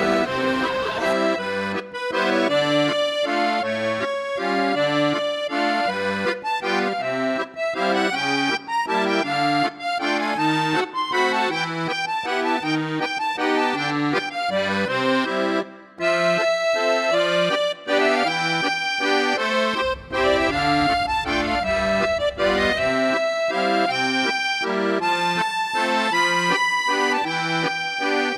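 Instrumental background music: a melody over a steady, even beat of alternating bass notes and chords, with a brief break about 16 seconds in.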